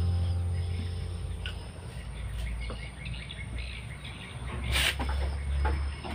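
Background music fading out in the first second, then workshop ambience with a low steady hum and birds chirping. A few sharp knocks from a hand wrench working on the engine mount bolts break through, the loudest a little before five seconds in.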